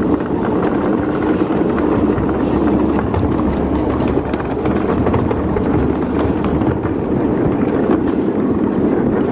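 Steady running noise of a ride-on miniature train rolling along the track, with many irregular clicks of steel wheels over rail joints and switches.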